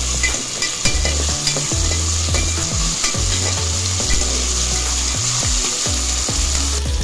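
Ginger-garlic paste and chillies sizzling in hot oil in a metal pot, being fried until the raw smell is gone. A steel spatula scrapes and taps against the pot as it stirs. The sizzling cuts off suddenly near the end.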